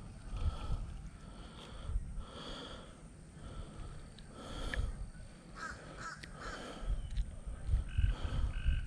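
Birds calling several times in short calls, with a quick cluster of calls in the middle and a couple near the end, over low thumps and rumble.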